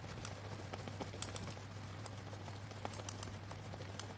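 Natto being whipped with a thin plastic stirrer in a foam tray: a quick, irregular patter of small clicks as the sticky beans begin to froth.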